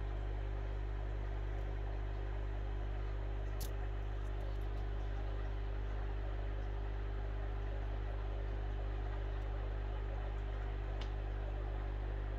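Steady low hum of aquarium pump equipment with a continuous wash of bubbling water from an airstone in a large fish tank. Two faint clicks, about four seconds in and near the end.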